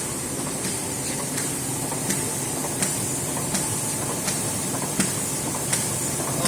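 Plastic bag sealing and cutting machine running steadily with a hiss, with a sharp click about every 0.7 seconds as it cycles through each seal-and-cut stroke.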